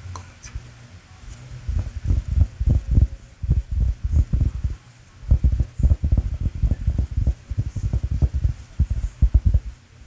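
Fingers tapping and patting a plush velvet neck pillow held right over the microphone: a rapid, irregular run of soft, deep thumps, starting about a second and a half in.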